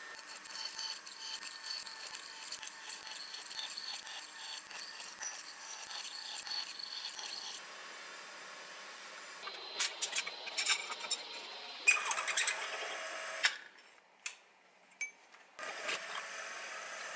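Drilling machine boring holes in aluminium, running steadily with a faint high whine and the tick of falling chips. About halfway through it gives way to clatter and sharp clicks of metal parts being handled in a steel machine vise, and the steady machine sound comes back near the end.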